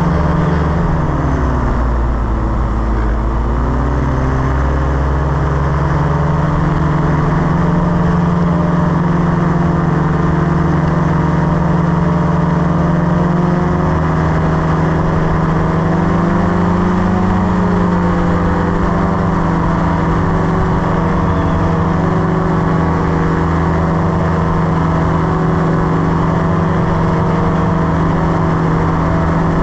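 Paratrike engine and propeller running steadily in flight. Its pitch dips and recovers about two seconds in, and rises briefly a little past the middle.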